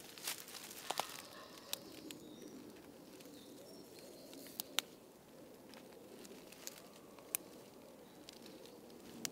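Scattered sharp snaps and crackles of plant stems and twigs amid quiet rustling in woodland undergrowth, with faint birds calling.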